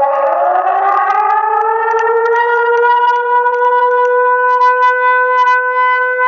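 Outdoor civil-defence warning siren sounding in a public alarm test. Its pitch climbs over the first two seconds as the previous falling tone fades, then holds a steady, loud tone.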